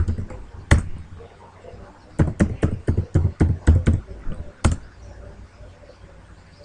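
Computer keyboard being typed on: a few separate keystrokes, then a quick run of about eight keys over two seconds, and one last single keystroke about half a second later.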